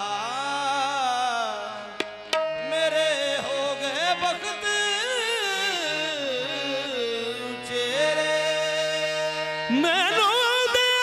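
Live Punjabi Sufi kalam sung qawwali-style: a lead voice sings long, sliding melismatic lines over held harmonium notes, with tabla. A louder voice comes in near the end.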